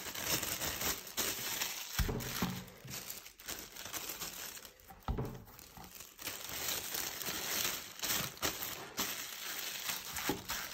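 Thin plastic bag crinkling and rustling as it is wrapped by hand around balls of dough, with a couple of soft thumps about two and five seconds in.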